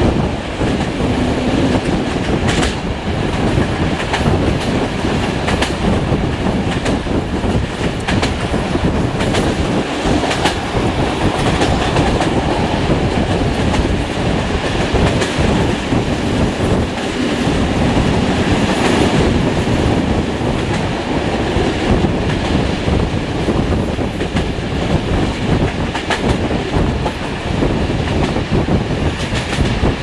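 Passenger train wheels running at speed over the rails: a steady rolling noise with irregular sharp clicks as the wheels cross rail joints, heard from an open carriage window.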